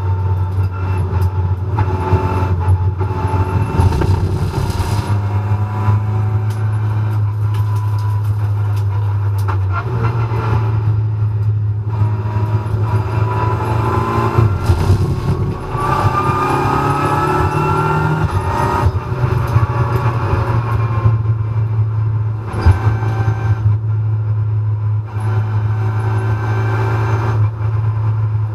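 Renault Clio Cup race car's 1.3-litre turbocharged four-cylinder heard from inside the stripped cabin at racing speed: a loud steady drone, with a whine rising in pitch as the car accelerates about halfway through, and a few brief drops in level at gearchanges.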